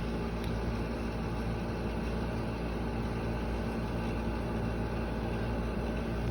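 Air conditioner units running with a steady mechanical hum and a low drone.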